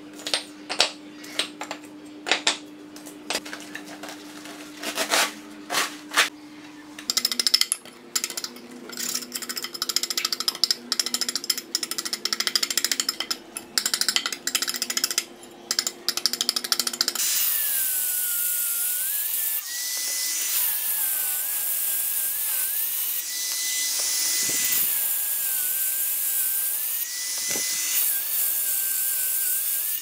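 Bricks knocking as they are set down around a concrete slab, then a trowel scraping rough hardened concrete, then an electric angle grinder running and cutting red brick, its whine sagging in pitch each time the disc bites and recovering as it eases off.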